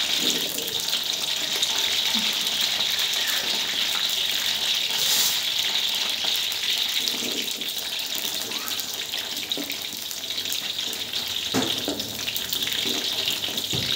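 Purple eggplant pieces frying in hot oil in a wok: a steady sizzle. Near the end a metal spatula knocks briefly against the wok as it goes in to turn the pieces.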